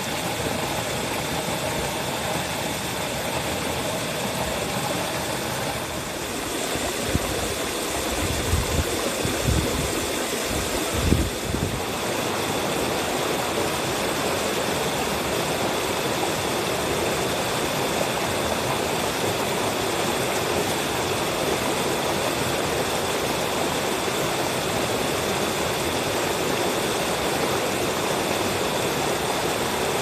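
Mountain stream rushing and splashing steadily over boulders in small cascades. A few low thumps come in near the middle.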